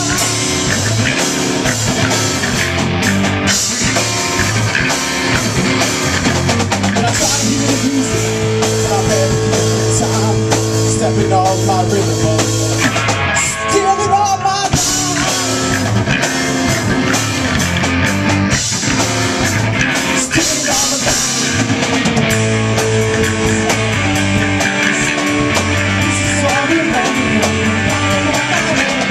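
A live rock band playing: electric guitar, electric bass and drum kit in a driving rock groove. The cymbals and top end thin out briefly about halfway through before the full band comes back in.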